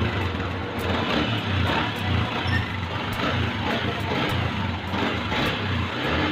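Yamaha Sniper 150's single-cylinder, liquid-cooled four-stroke engine running after a tune-up, with a pulsing low hum.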